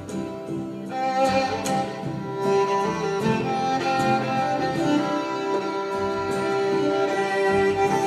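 Live band instrumental passage: bowed violin playing long held notes over upright double bass and acoustic guitar.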